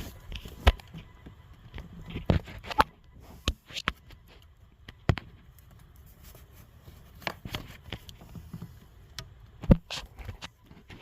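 Irregular sharp clicks and knocks, about ten of them with the loudest about a second in and near the end: hands working a fitting into a coolant hose and clipping it on.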